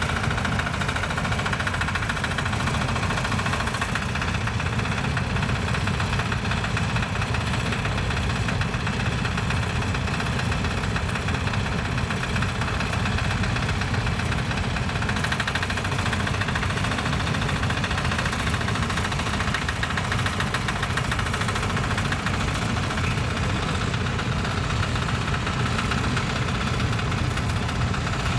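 Tractor engine running steadily at an even speed, with a fast regular firing pulse.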